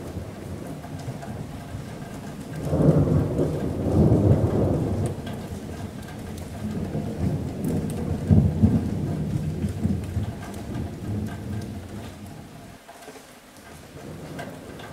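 Steady rain on a metal roof with a long roll of thunder. The thunder builds about two and a half seconds in, swells twice and fades away near the end.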